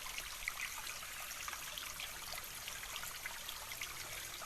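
Faint, steady trickling of running water, like a small stream, with scattered small ticks.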